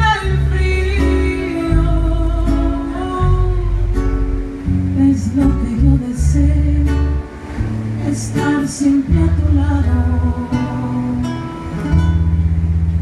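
Live band music: strummed guitar over long, deep bass notes, with a woman's singing voice in parts.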